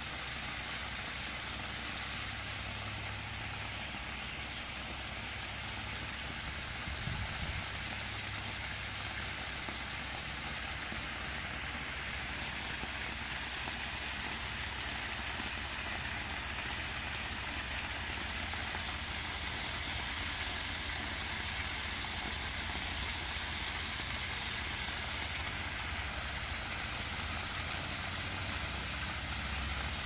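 Water pouring in a steady sheet from a backyard waterfall spillway and splashing into a shallow stone-edged basin, a constant rushing hiss with a low rumble underneath. A brief low thump about seven seconds in.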